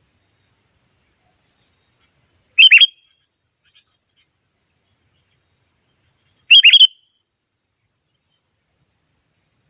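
Sooty-headed bulbul (kutilang) giving two short, loud call phrases about four seconds apart. Each phrase is a quick cluster of bubbly notes.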